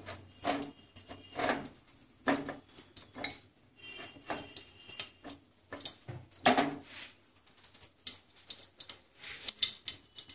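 Peeled boiled duck eggs being turned and rubbed with turmeric by hand in a bowl: an irregular run of soft knocks and rubbing as the eggs roll against each other and the bowl.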